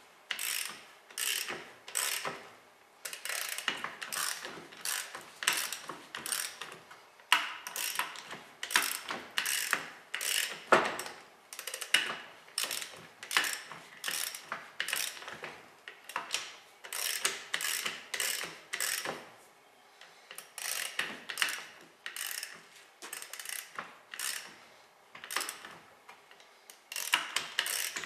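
Socket ratchet wrench clicking in repeated short runs as it is swung back and forth on a rust-seized wheel eccentric pin, working the corroded pin loose.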